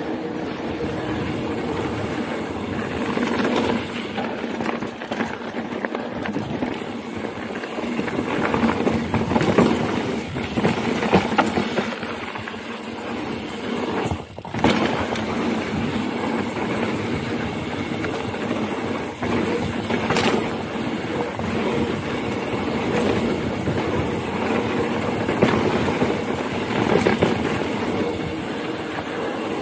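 Mountain bike ridden fast down a rough dirt singletrack: steady tyre and chain rattle broken by frequent sharp knocks over bumps and little hops, with a brief lull about halfway.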